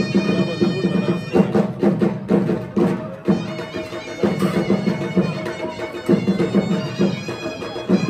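Traditional folk music: a reedy wind instrument holding steady notes over repeated drum beats.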